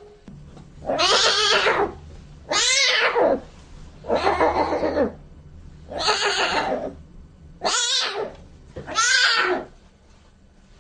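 White lion cub calling six times in a row: short, high, cat-like mewing cries, each under a second long.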